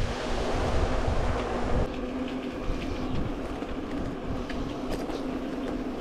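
Wind buffeting the microphone over the rolling noise of a bicycle on a concrete road. About two seconds in the sound changes and a steady low hum joins the noise.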